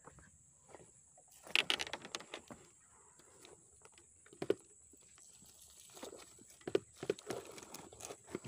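Rustling and scattered light knocks of handling: a bundle of grass and a cloth bag on a motorbike being handled. The loudest rustle comes a little over a second in, with a few sharper knocks later.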